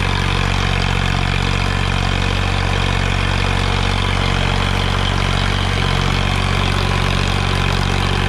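Sonalika DI-35 tractor's diesel engine running steadily at full throttle under load, pulling an 8x8 disc harrow through the soil.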